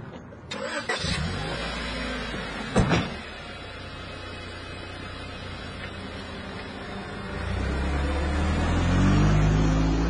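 A car door is shut with a single knock about three seconds in over an idling car engine. Near the end the engine revs up in rising pitch as the car pulls away.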